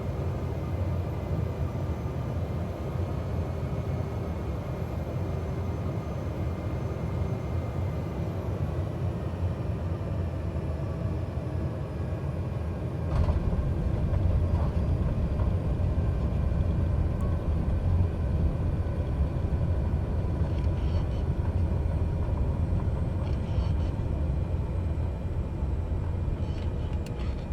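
Cessna 208 Grand Caravan's Pratt & Whitney PT6A turboprop engine and propeller running, heard inside the aircraft, with a steady whine that sags slightly in pitch. About halfway through, a louder low rumble starts suddenly and continues.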